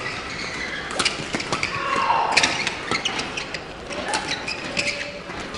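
Badminton doubles rally: a string of sharp racket-on-shuttlecock hits at irregular intervals, with short squeaks of players' shoes on the court mat.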